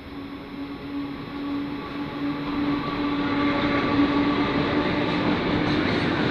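A train approaching on the rails, its running noise growing steadily louder, with a steady low hum and a higher tone over it.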